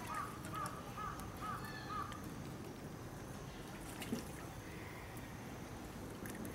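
Humboldt penguins calling while crowded together waiting for food: a quick run of about six short, identical calls in the first two seconds, then only faint background noise with a single click about four seconds in.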